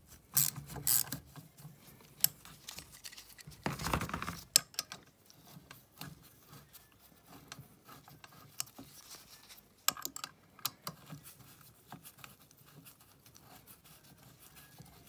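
A screwdriver backing out the long screws that hold a pocket bike's carburetor and intake manifold to its two-stroke engine, making scattered small mechanical clicks and rattles. There is a louder clatter near the start and another about four seconds in.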